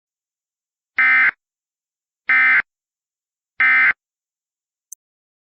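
Emergency Alert System end-of-message signal: three short bursts of SAME digital data tones, evenly spaced about a second and a quarter apart, marking the close of the alert.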